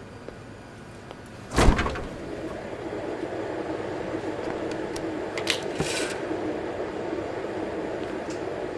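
Glass door of a refrigerated drinks cooler pulled open with a sharp knock about a second and a half in, followed by the cooler's steady hum and a few light clicks as a bottle is taken from the shelf.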